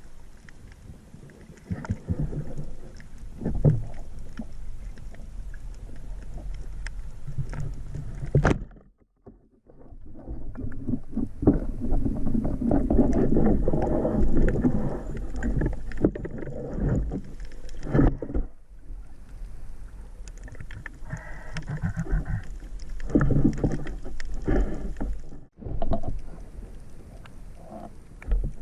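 Sea water splashing and sloshing, with irregular muffled knocks. The sound breaks off suddenly twice.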